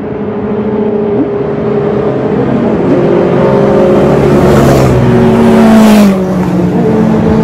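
Classic Japanese four-cylinder motorcycle with an aftermarket collector exhaust riding out of a tunnel and passing close by. The exhaust note grows louder as it approaches, is loudest about six seconds in, then drops in pitch as it goes past.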